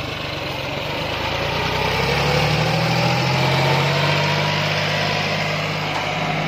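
John Deere 5104 tractor's three-cylinder diesel engine working under load, hauling a fully loaded trolley. The engine note rises and grows louder over the first few seconds, holds, then eases a little near the end.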